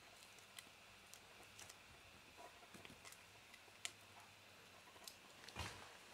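Faint, scattered clicks of a kitten's claws and teeth catching on the teeth of a plastic comb, with a dull thump a little before the end.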